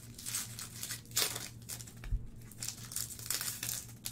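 Foil trading-card packs of Panini Phoenix football being crinkled and torn open by hand: irregular crackling rustles throughout, with a louder crackle about a second in. A short low thump about two seconds in.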